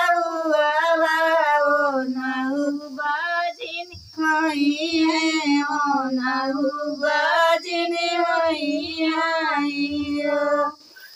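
Two women singing a sohar, a North Indian folk song of childbirth, without instruments, in long, wavering held notes. There is a short break about four seconds in, and the voices stop just before the end.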